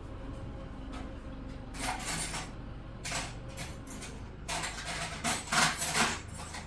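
Metal hand wrenches clinking and clattering against each other as they are rummaged through, in several bursts, the busiest near the end.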